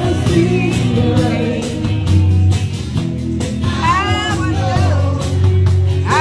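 Live band music with a steady drum beat and bass line; a voice sings a short phrase about two thirds of the way through.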